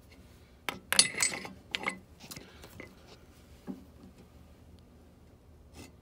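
Metal workshop handling sounds at a vise and drill press: a quick cluster of sharp clinks and rattles about a second in, then a few lighter knocks. The drill is not running.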